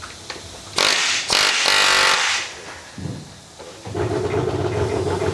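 Power tools at work on aluminium door frames: a loud hissing burst lasting about a second and a half, then a motor running steadily from about four seconds in.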